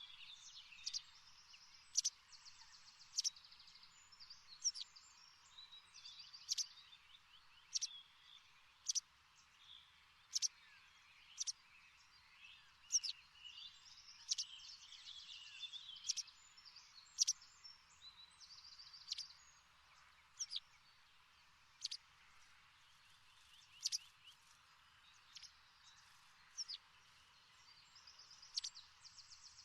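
Birds chirping: short, sharp, falling calls repeated roughly once a second, with bursts of fast trilling between them over a faint hiss.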